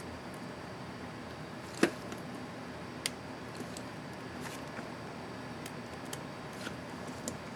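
Small sharp plastic clicks from a laptop keycap and its clips being handled and snapped into place, with one louder snap about two seconds in and another about a second later, then several faint ticks, over a steady hiss.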